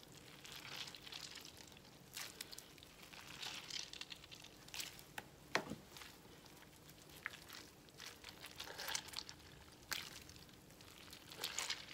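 Hands squeezing and kneading salted shredded wild garlic and cabbage to wring the water out: faint, irregular wet squelching and crinkling, with a few sharper clicks.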